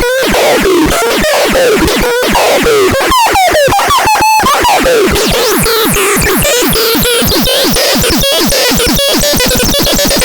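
Electronic sounds from the SADO ĎASO ST 1 being demonstrated: a dense stream of rapidly repeating falling zaps over a held tone, the zaps coming faster and closer together from about six seconds in.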